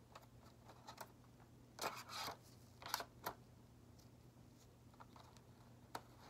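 Short rustles and crinkles of plastic and paper packaging as gloved hands handle the contents of a catheter kit, in a few brief bursts, the strongest about two and three seconds in, over a faint steady low hum.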